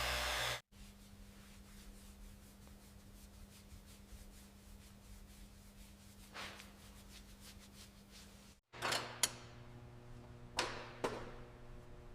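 A loud steady hiss of blowing air cuts off half a second in, leaving a quiet low hum; near the end, several sharp metallic clinks of tools and parts on metal, each with a short ring.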